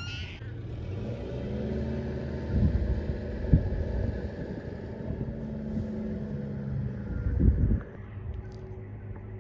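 A motor running with a steady hum that stops about eight seconds in, over a low rumble with a few dull thumps.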